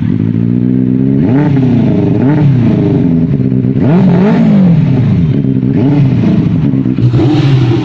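Benelli TNT 600i's inline-four engine idling through its stock-looking exhaust, blipped several times: each rev rises and drops back to idle, with one longer rev near the middle.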